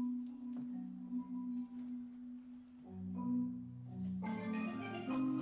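Percussion orchestra of marimbas and other mallet instruments playing a slow passage of held low notes. About four seconds in more instruments join with higher notes and the sound grows fuller.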